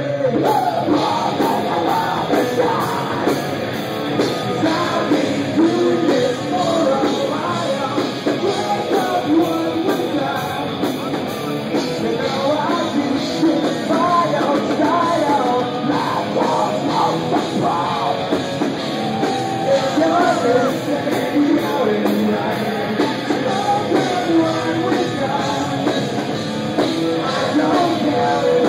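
Heavy metal band playing live: electric guitars, bass and drum kit at a loud, steady level, with vocals.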